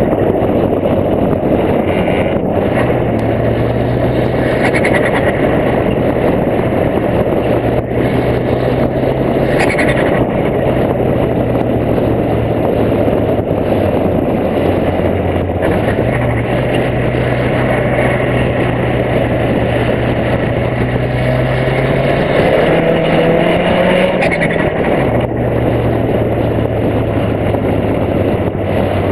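Golf Mk2's 1.8-litre turbo four-cylinder engine running on the road while driving, heard from a camera on the bonnet with heavy wind rush over the microphone. The engine note is steady for most of the time, rises about three-quarters of the way through, then drops back.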